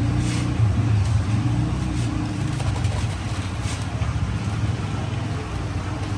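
Steady low engine rumble of street traffic.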